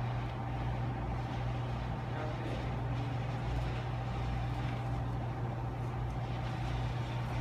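Steady low mechanical hum with a faint, constant higher whine above it, unchanging throughout.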